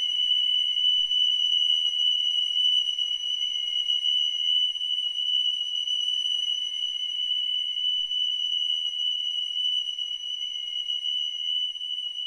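A steady high-pitched electronic tone held without a break, with fainter higher tones above it, from the piece's live electronics. It grows slightly quieter toward the end.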